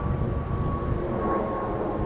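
Jet airliner's CFM LEAP-1A turbofan engines climbing overhead: a steady rumble with a thin whine that slowly falls in pitch.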